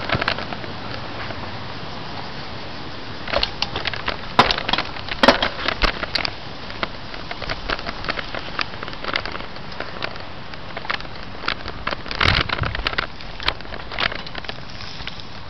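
A bicycle going over a rough, stony dirt trail: irregular knocks, cracks and crunches over a steady rolling noise, busiest about four to six seconds in and again near twelve seconds.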